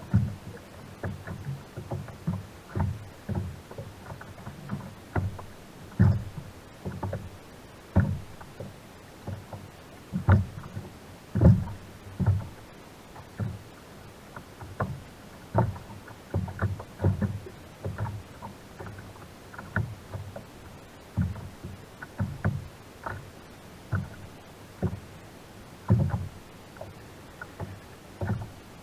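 Small waves slapping against a sit-on-top kayak's plastic hull: irregular dull thuds, one or two a second.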